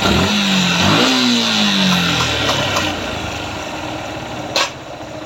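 Motorcycle engine revved twice in quick succession, then dropping back to a steady idle, just after a new rocker arm set has been fitted in place of rockers with worn balls. A sharp click sounds near the end.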